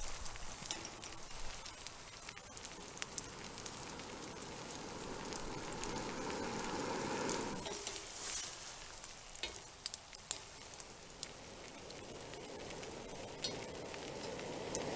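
French toast frying in a cast-iron pan over a campfire: a steady sizzle with scattered small pops and crackles. A low rushing sound swells through the middle and dies away about seven and a half seconds in.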